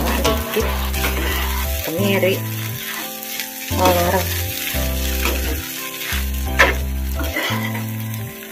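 Fried noodles sizzling in a hot frying pan as they are tossed and stirred with a metal spatula, with occasional scrapes of the spatula against the pan. Background music with a low bass line plays throughout.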